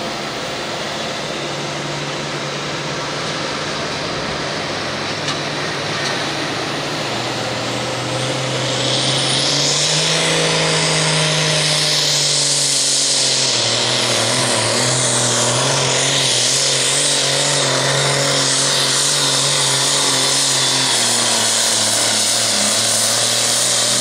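Super Farm pulling tractor's turbocharged diesel engine running at the line, then revving up to full power about nine seconds in as it makes its pull, with a loud high-pitched whine and hiss over the engine note.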